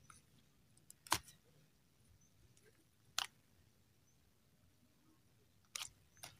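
Mostly quiet, with a few sharp clicks and snaps, about four, from hands pulling a tilapia free of a fine nylon fishing net.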